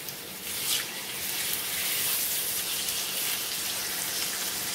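Raw chicken breasts sizzling in hot oil in a cast-iron skillet. The sizzle swells about a second in as another breast is laid into the pan, then holds steady.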